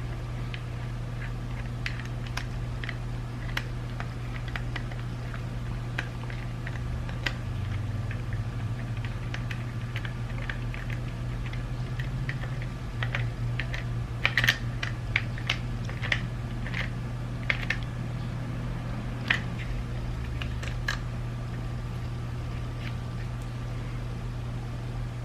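Small plastic clicks and taps from the parts of a BMW iDrive controller being handled and fitted back together. They come sparsely at first, then more closely together in the second half, over a steady low hum.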